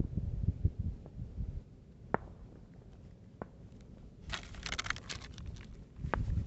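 Brief hissing and sputtering about four seconds in, lasting about a second and trailing off, from the fuse of a firework fountain being lit. Before it come low rumbling and a few sharp clicks.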